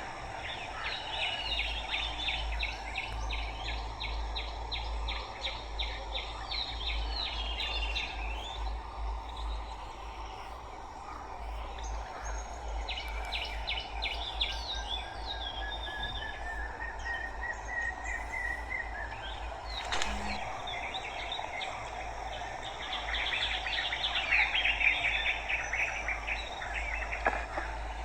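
Wild birds chirping in rapid trills, in several bouts, with one long slowly rising whistle partway through, over steady outdoor background noise and a low hum.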